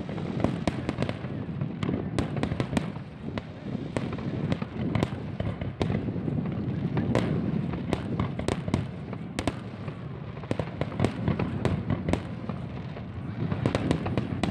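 Sharp cracks and pops going off at irregular intervals, several a second, over a steady low rumble.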